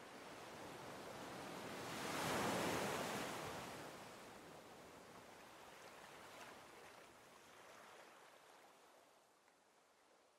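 A rushing noise that swells to a peak about two and a half seconds in, then slowly fades away.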